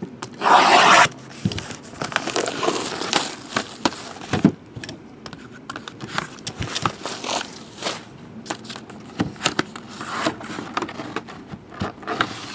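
A sealed trading card box being unwrapped and opened by hand: a loud rip about half a second in, then irregular scraping, crinkling and clicks as the wrapping, box and cards are handled.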